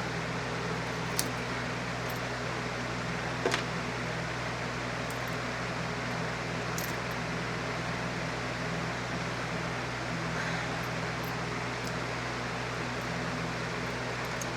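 Steady mechanical hum and hiss, with two short sharp clicks about one second and three and a half seconds in.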